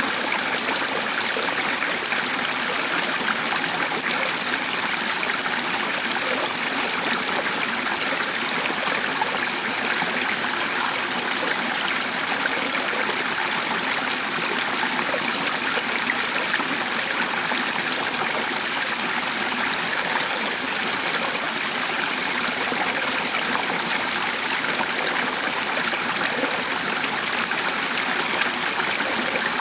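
Stream of running water flowing steadily, an even rushing and trickling that holds unchanged throughout.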